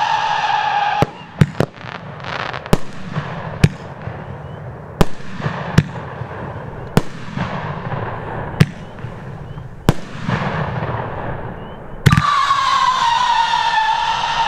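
Bright Star Wolf Warrior 500-gram, 18-shot firework cake firing. A howling whistle tail with a slowly falling pitch fades out about a second in, then about ten sharp bangs follow over the next eleven seconds with a hissing crackle between them. Near the end a new shot sends up another howling whistle tail, its pitch again slowly falling.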